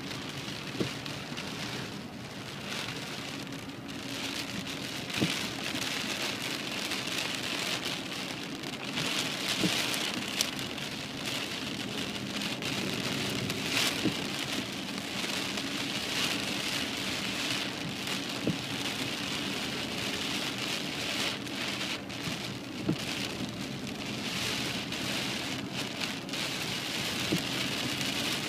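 Heavy rain falling on a moving car's windscreen and roof, heard from inside the cabin: a steady hiss scattered with sharp ticks of single drops striking the glass, over a low steady hum.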